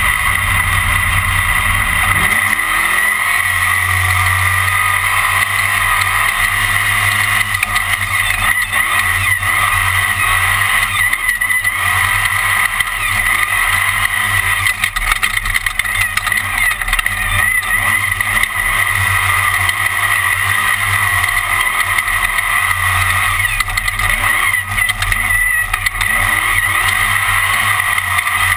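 Class One off-road race car's engine running hard at speed, its revs rising and dropping again and again, heard over continuous wind and chassis noise.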